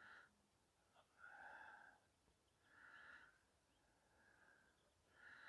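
Near silence, with a faint animal call repeated about every second and a half, five times.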